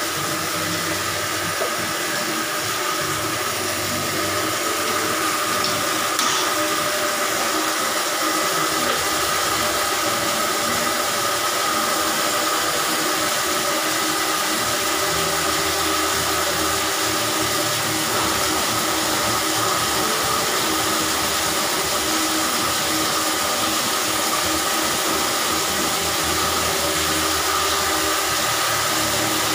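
Electric drum-type drain-cleaning machine running steadily, its motor turning a spiral spring cable fed down a blocked bathroom floor drain. It gives an even whirring hum with a steady whine.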